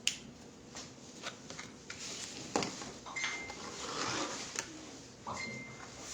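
Handling noises: rubbing and rustling with a few sharp clicks scattered through, and two short high squeaks.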